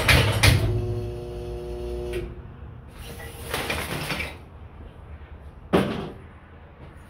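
Homemade flywheel-and-crank kindling machine chopping wood, with a few last rapid chopping strokes over its drive's hum. The hum drops to a steady whine that stops about two seconds in. Then split sticks clatter as they are handled, with one sharp knock near six seconds.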